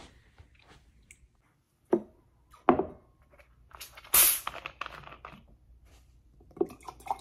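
Two knocks as a plastic bottle of Pepsi is handled on a desk, then a short sharp hiss of escaping carbonation as the cap is twisted open. Near the end, cola glugs quickly in a run of pulses as it is poured into a glass tumbler.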